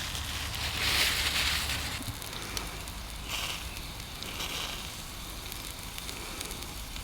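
Rib eye steak sizzling over lump-wood charcoal in a small firebox stove, with crackling from the coals; the hiss swells about a second in and again a few times after.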